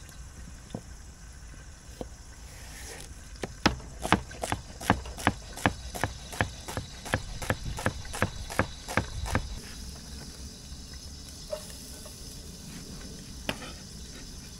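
Chef's knife chopping a celery stalk on a plastic cutting board: a steady run of even knife taps, about three a second, through the middle few seconds, with a few single taps before and after.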